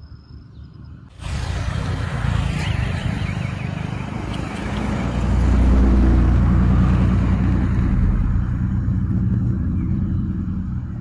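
A motor vehicle's engine running close by. It comes in abruptly about a second in, grows loudest about five seconds in with a low steady hum, then slowly eases off.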